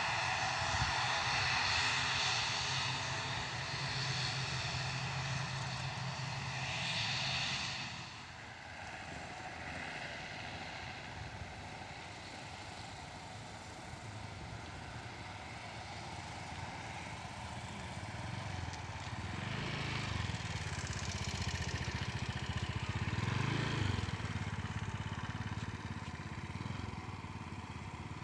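Jet airliner engine noise, fading out about eight seconds in. Later a motor vehicle engine, likely a motorbike, swells and fades.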